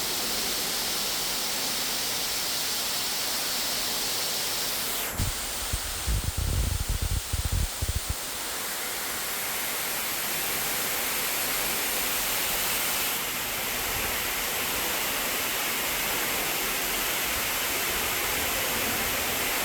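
Large waterfall rushing, a steady, even wash of falling water. Between about five and eight seconds in, a run of low, irregular rumbling thumps sounds over it.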